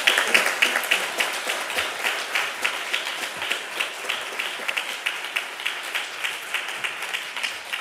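Audience applauding, loudest at the start and gradually dying away.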